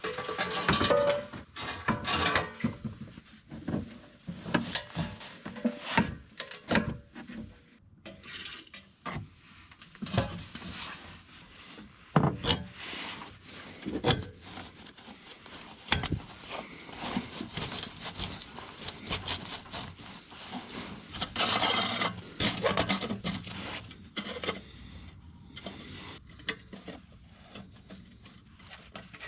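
Irregular knocks, clinks and scraping of hand tools and metal car parts being handled during reassembly work under a car.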